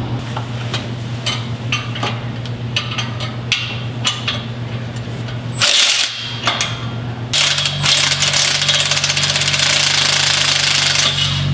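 Handheld power tool working in bursts: scattered taps and clicks, a short burst about six seconds in, then a fast, rattling run of about four seconds that cuts off near the end. A steady low hum lies underneath.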